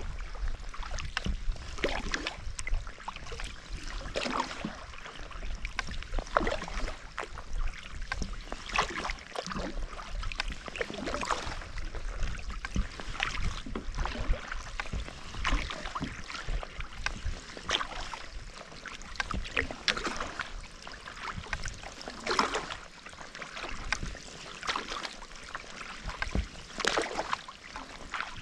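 Kayak paddle strokes in calm sea water: the blades dipping and pulling with splashes and drips in a steady rhythm, a stronger splash about every two seconds.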